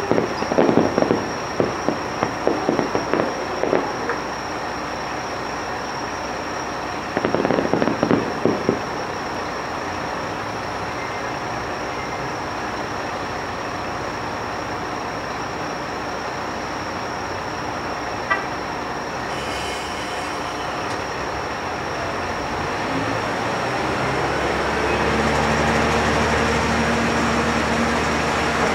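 Fireworks crackling in quick clusters of sharp bursts, one in the first few seconds and another about seven seconds in. Later a Joso Line diesel railcar pulls out of the station, its engine note rising and growing louder over the last few seconds.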